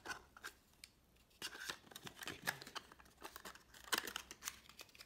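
Hands handling a small white cardboard box and a plastic charger: a run of small clicks, taps and scraping rubs, busiest from about a second and a half in.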